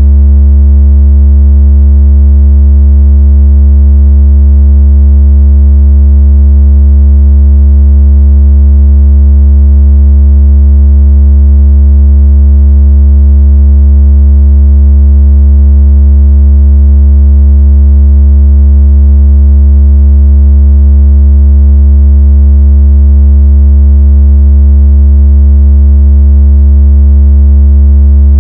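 Deep, steady synthesized bass tone played very loud as a speaker water-ejection and vibration sound. It holds one unchanging pitch with faint overtones above it.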